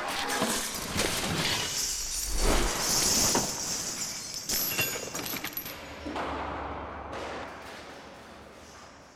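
A skeleton in armour, with its chain and bucket, falling down a deep stone well shaft: a long run of clattering, clanging crashes that echo in the shaft and grow fainter as the falling things drop deeper.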